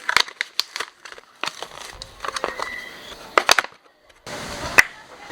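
Brake pads and caliper parts being handled and fitted on a scooter's rear brake: a run of irregular sharp metallic clicks and clinks, with a brief gap a little before the end.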